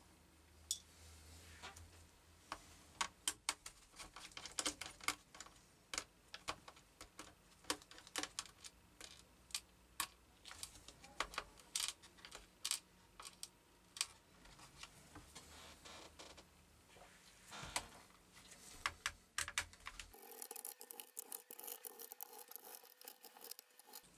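Irregular sharp clicks and taps of hard plastic and small parts being handled on a laptop's plastic base, as screws, brackets and covers are worked loose by hand.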